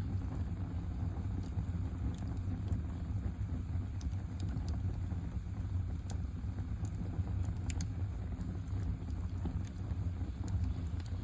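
Campfire crackling: scattered sharp pops and snaps over a steady low rumble.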